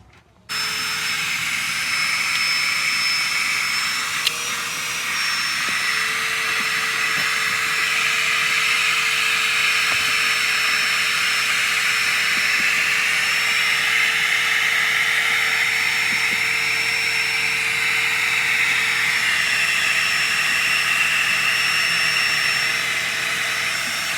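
Electric air pump inflating an air mattress: a loud, steady motor whine with a rush of air, switching on abruptly about half a second in.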